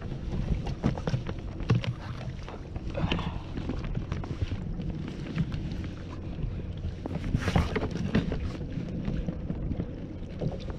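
Wind rumbling on the microphone, with many small knocks and rustles as a fish measuring mat and a samsonfish are handled on a kayak; a brief louder rustle about seven and a half seconds in.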